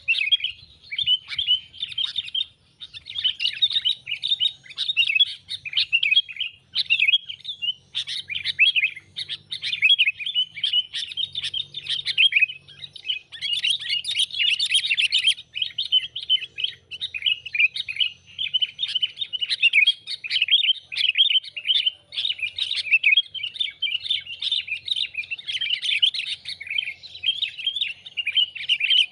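Sooty-headed bulbul (kutilang) chattering: a fast, nearly unbroken run of short bright chirps, with brief breaks about three and eight seconds in.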